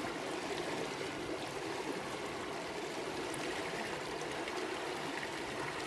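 Steady flowing creek water.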